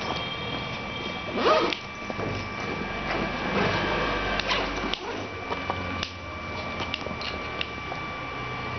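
Kitten purring right against the microphone, mixed with rustling of fabric and fur, with a brief louder noise about one and a half seconds in.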